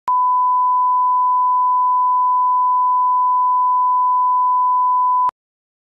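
Line-up reference tone that goes with a broadcast colour-bars test card: one steady pure beep at about 1 kHz lasting about five seconds, starting and stopping abruptly.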